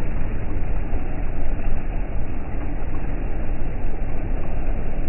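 Ferry engine running under power, with its propeller wash churning the water: a steady, heavy low rumble.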